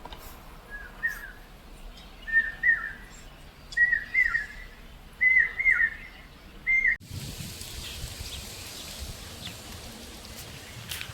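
A bird whistling a short phrase that rises and then drops, five times about a second and a half apart, each louder than the last. It stops abruptly about seven seconds in, giving way to steady outdoor hiss with low rumbles.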